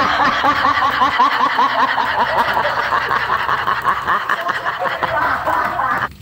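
Comedic laughter sound effect: a rapid, unbroken run of short high giggles that cuts off abruptly near the end.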